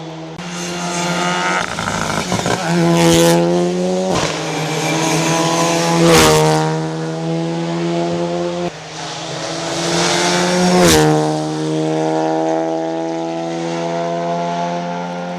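Renault Clio Rally3 rally car engine driven hard, revs climbing and then dropping sharply at gear changes, each with a short sharp crack, about three times (around three, six and eleven seconds in).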